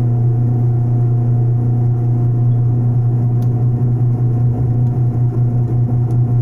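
Benchtop metal lathe running, its four-jaw chuck spinning a lead workpiece, with a loud, steady motor hum.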